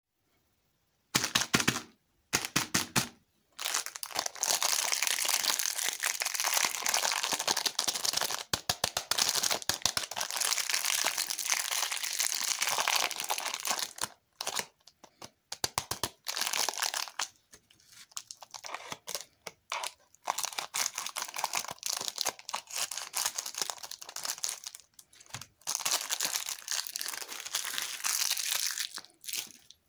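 Crinkling and tearing of plastic candy wrappers as a lollipop is unwrapped by hand, in long stretches broken by short pauses. A few sharp clicks come in the first couple of seconds.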